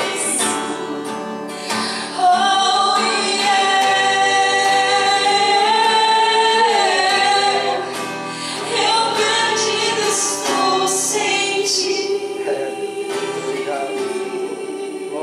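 A woman sings a worship song to her own acoustic guitar. She holds one long note from about two seconds in until about seven seconds, then sings shorter phrases.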